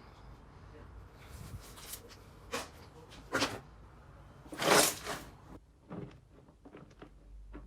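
Slime being handled by hand: a few short, separate squelching noises, the loudest a little under five seconds in.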